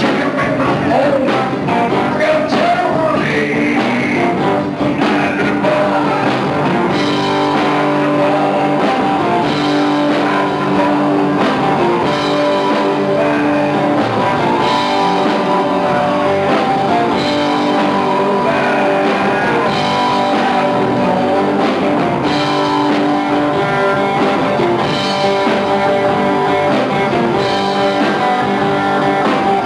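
Rock band playing live: distorted electric guitars over a drum kit, with a lead singer at times. The music is loud and continuous.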